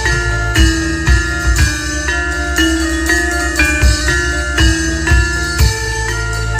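Music played loudly over a sound system: metallophones sound struck, ringing tones at several pitches over a steady deep bass and drum strokes about once a second, in the manner of Javanese gamelan.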